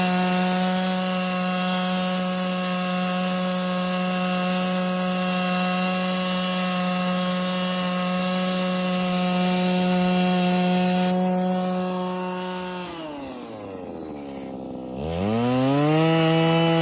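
Power ice auger's small engine running steadily at high speed. About 13 seconds in its pitch drops sharply almost to a stall, then it revs back up to speed.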